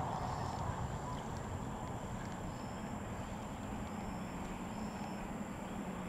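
Outdoor ambience: a low rumble and a steady thin high whine, with short high chirps repeating roughly once a second.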